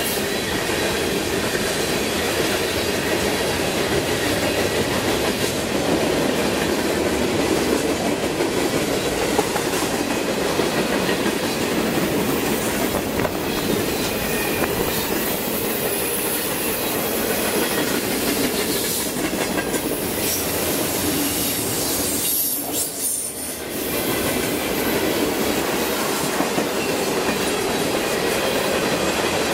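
CN freight train's cars rolling past at steady speed: continuous rumble and clickety-clack of steel wheels over the rail joints. The noise dips briefly near the end.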